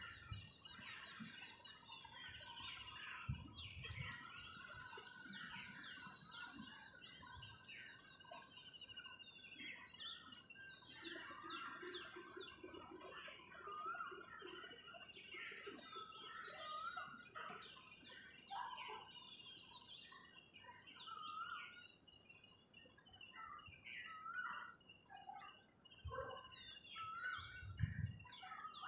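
Faint dawn chorus of many small birds chirping and trilling over one another, with a low thud about three seconds in and low rumbles near the end.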